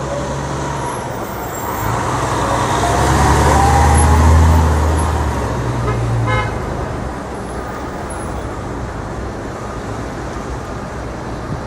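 City street traffic, with a heavy vehicle's engine rumble swelling as it passes close, loudest about four seconds in and fading by about seven seconds. A brief short toot sounds about six seconds in.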